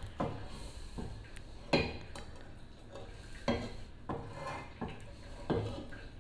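A metal frying pan being tilted and swirled on a gas stove to spread a little oil, knocking and scraping against the burner grate about six times, the sharpest knock about two seconds in.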